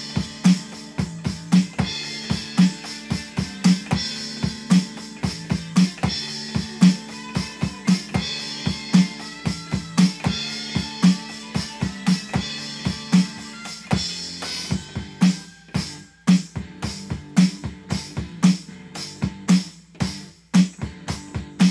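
Electronic drum kit with mesh pads played in a driving hard-rock groove, kick, snare and cymbal hits over a hard-rock backing track with guitar and bass. In the second half the playing opens up, with short breaks between fills.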